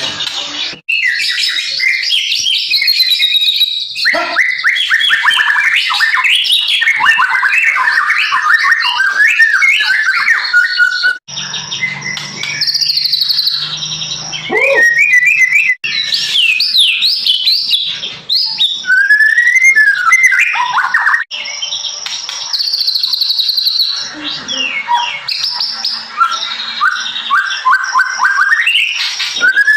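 White-rumped shama (murai batu) singing loudly: a fast, varied run of whistles, trills and chirps that breaks off abruptly and restarts several times. The song is full and clear, shown as the voice restored after treatment for hoarseness.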